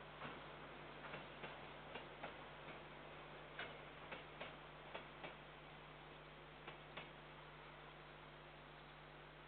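Faint clicks of a KiwiRail container train's wheels crossing a rail joint, often in pairs about a third of a second apart as each bogie's axles pass, stopping about seven seconds in as the last wagons go by. A steady low hum runs underneath.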